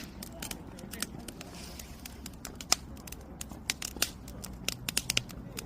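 Firewood burning: a crackling fire with irregular sharp snaps and pops, several a second, one louder pop near the middle.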